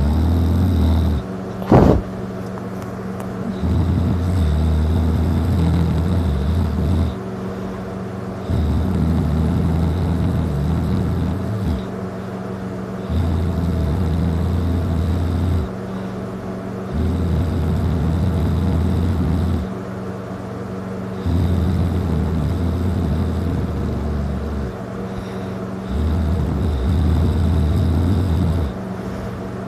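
Loud, steady snoring from a person passed out drunk on their back. Each long, low, rumbling snore lasts about three seconds and comes back about every four and a half seconds, with one short loud burst about two seconds in.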